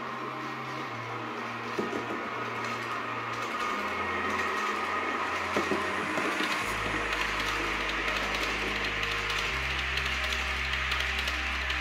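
H0-scale model freight train of container wagons rolling along the track, a steady fine clattering of wheels on rails that grows louder from about halfway through as the wagons come closer.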